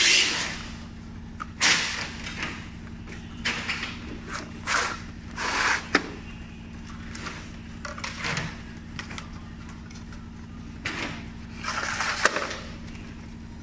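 Plastic tube settler media modules being handled and loaded, with irregular scraping, sliding and knocking, over a steady low hum.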